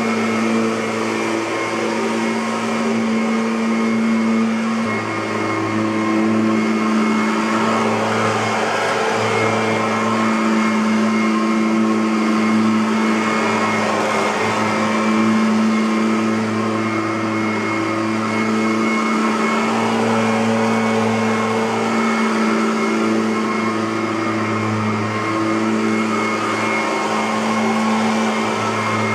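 Kirby Avalir G10D upright vacuum cleaner running steadily: a motor hum that swells and eases slightly every few seconds.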